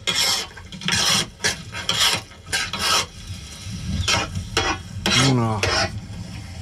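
A utensil scraping and mashing thick pav bhaji in a large pan, in repeated rasping strokes about once a second, with a little sizzling.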